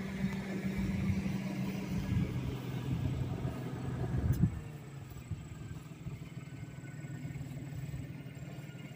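A steady low engine hum that drops away about four and a half seconds in, leaving a low rumble.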